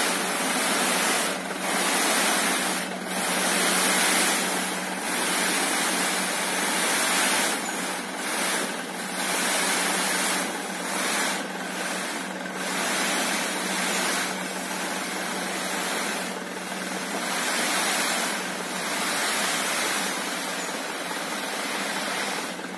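Sand sliding off the raised bed of a dump truck in a rushing hiss that swells and fades, with the truck's engine running steadily underneath.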